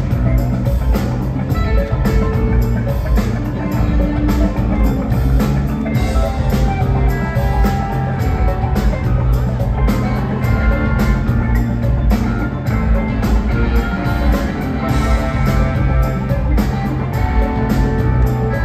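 A rock band playing live: electric guitars, bass, keyboards, a drum kit and percussion, with a steady drum beat.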